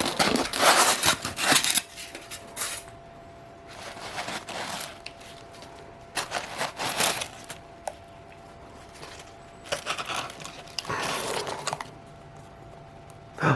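Frog shipping package being opened by hand: rustling, crinkling and tearing of packing material in about five separate bursts, the loudest in the first two seconds.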